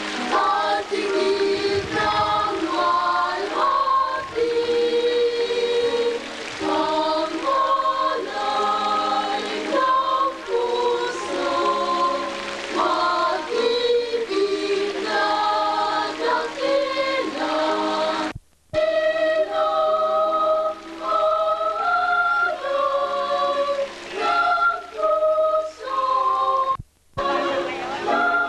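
Girls' choir singing a slow song in harmony. The sound drops out briefly twice, about two-thirds of the way through and again near the end.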